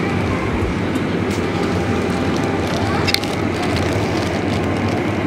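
Supermarket ambience: a steady, dense din of the shop floor, with a few sharp clicks or rattles about three seconds in.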